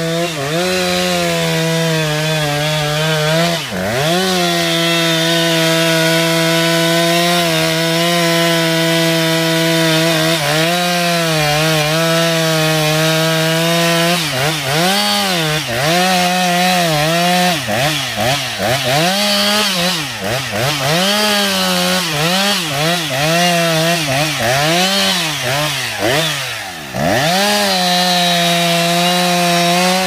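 Two-stroke chainsaw running at high revs, cutting into the base of a tree trunk. For the first half the engine note holds steady; about halfway through it starts dipping and climbing back over and over, about once a second, then steadies again near the end.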